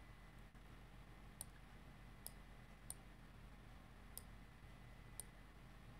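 Faint computer mouse clicks, about five of them spaced a second or so apart, over near silence.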